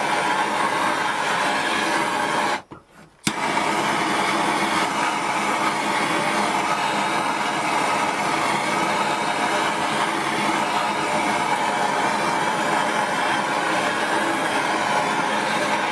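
Metal-melting furnace running with a steady rushing noise, heating silver up to pouring temperature. The sound cuts out briefly about three seconds in.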